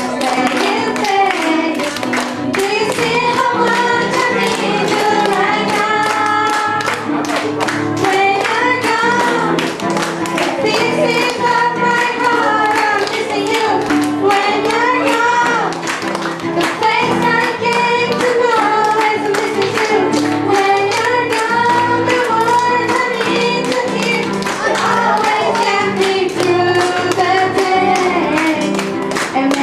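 Singers performing a pop ballad live with instrumental accompaniment, the voices carrying the melody over steady backing chords.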